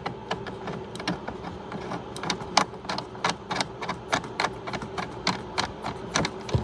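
Irregular sharp metallic clicks, several a second, of a hand tool working the nut on a cable terminal stud, over a faint steady hum.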